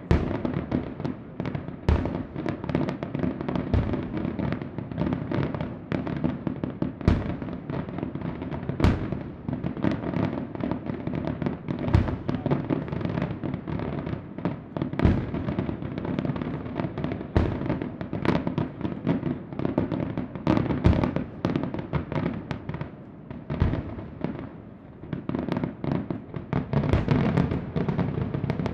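Colangelo Fireworks aerial display: shells launching and bursting one after another in quick succession, sharp bangs over continuous crackle. The barrage thins out briefly a little after two-thirds of the way through, then grows dense again near the end.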